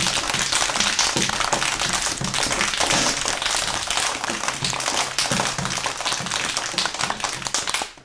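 Crowd applause: many people clapping together in a dense, steady patter that stops right at the end.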